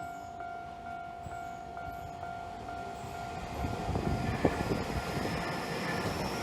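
Japanese level-crossing warning bell ringing, a quick electronic ding about twice a second. About three and a half seconds in, a Keio 1000-series train comes through: its wheels rumble on the rails, there is one sharp clack, and a high whine slowly rises.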